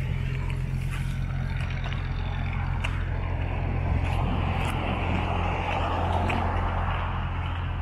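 Road traffic: a car passes close by about halfway through, its tyre and engine noise swelling and fading over a steady low rumble of city traffic.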